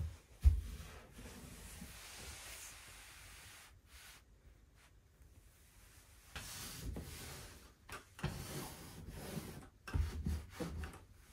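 Quilted kotatsu futon rubbing and rustling as it is handled and smoothed, and the round wooden kotatsu tabletop set onto it. A sharp thump comes about half a second in, and a few low knocks come near the end.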